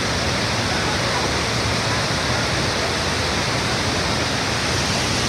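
Niagara's Horseshoe Falls: a steady, even rush of heavy falling water.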